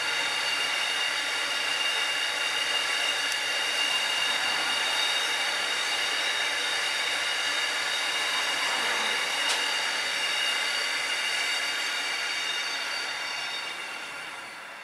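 Loaded CBH grain hopper wagons rolling past on steel rails: a steady rumble of wheels on track with a thin, high, sustained squeal from the wheels. The sound fades near the end as the last wagon goes by.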